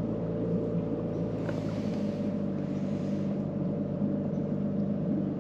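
Outboard motor on a canoe running steadily, a constant low drone with a light hiss of water and air over it.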